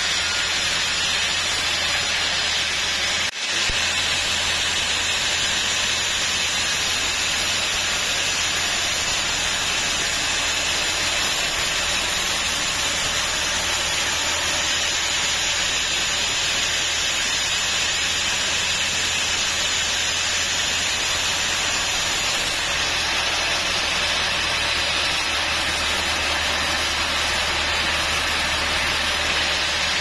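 Vertical band saw cutting small teak logs fed by hand: a steady sawing noise from the blade over the low hum of its motor. The sound briefly drops out about three seconds in.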